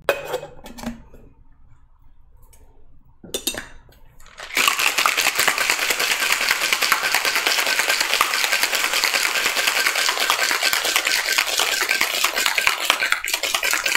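Ice rattling hard inside a stainless-steel cocktail shaker, shaken fast and steadily for about nine seconds, starting some four seconds in. Before the shaking, a few light clinks and knocks.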